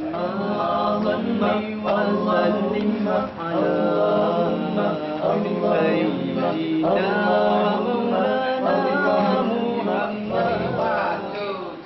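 A man singing unaccompanied: a slow melody of long held notes in phrases, with brief breaths between them.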